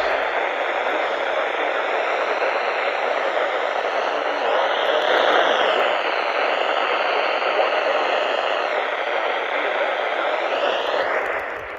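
Steady hiss of FM radio static from a NOAA Weather Radio receiver picking up no clear station signal; it fades away near the end.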